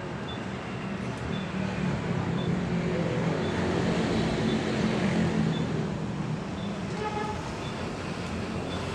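A motor vehicle engine running, growing louder toward the middle and easing off again, with faint regular ticks about once a second.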